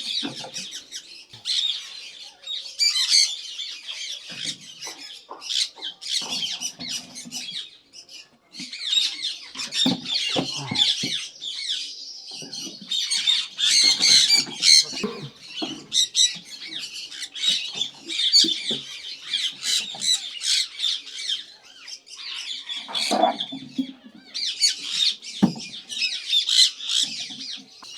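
A flock of Indian ringneck parakeets squawking, harsh high calls repeated almost without pause, with a couple of brief lulls. A few dull knocks are mixed in.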